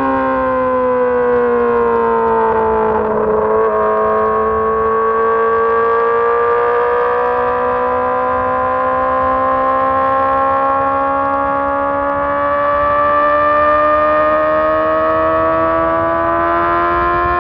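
2006 Honda CBR600RR's inline-four engine running under steady load. Its pitch sinks gently for the first few seconds, wavers briefly about three and a half seconds in, then climbs slowly and evenly as the revs build.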